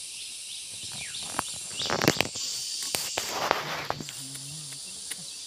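Leafy garden plants being pulled up and broken off by hand: a rustle of leaves and stems with sharp snaps, loudest for about two seconds in the middle. A steady high insect chirring runs underneath.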